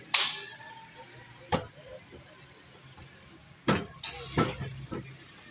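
Sharp clatters of utensils on steel at a paratha stall: a ringing clang just after the start, a single knock about a second and a half in, then a quick run of knocks near the end as a wooden rolling pin works dough on the stainless-steel counter.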